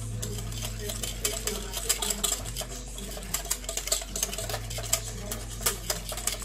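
Wire balloon whisk beating a thick semolina-and-yeast batter in a glass bowl, with quick, irregular clicks and scrapes as the wires strike the glass.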